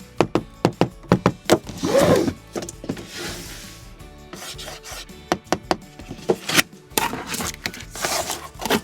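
A diecast model truck being handled: a fast run of small clicks, then stretches of rubbing and scraping of its parts, with a few more clicks between them. Soft background music runs underneath.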